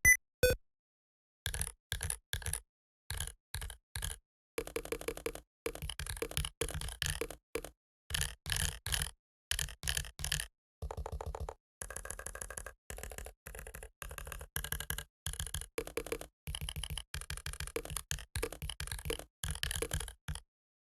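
Typing on a membrane keyboard: runs of rapid keystrokes, each a thocky click, separated by short gaps of dead silence, stopping shortly before the end.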